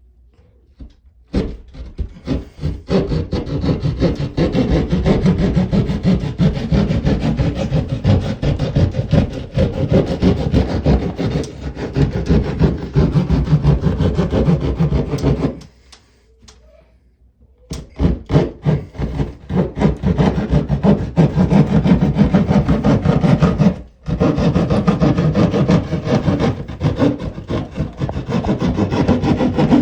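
Small hand saw cutting through ceiling sheetrock in quick back-and-forth strokes. It stops for about two seconds midway, then resumes.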